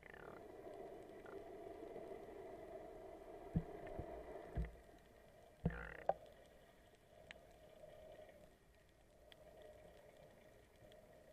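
Muffled underwater sound picked up by a submerged camera: a steady low hum with water noise. Several dull knocks come between about three and a half and six seconds in.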